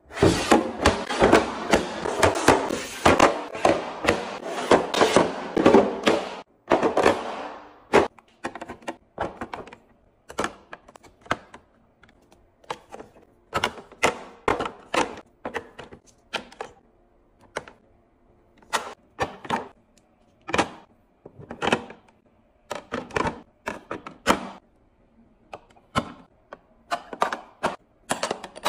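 Plastic bottles, tubes and jars being set down into clear plastic drawer organizers in a wooden drawer, a close-up restock. A dense run of clattering lasts about six seconds, then separate clicks and knocks follow as items are placed one at a time.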